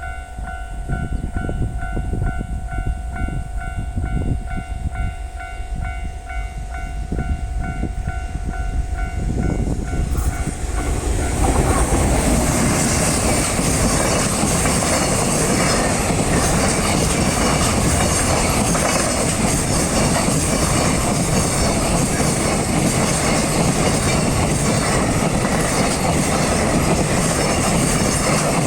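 Level-crossing warning bell ringing its steady electronic tone for about ten seconds. Then a JR Sanyo Main Line train runs over the crossing, its rail noise building up and drowning out the bell for the rest of the time.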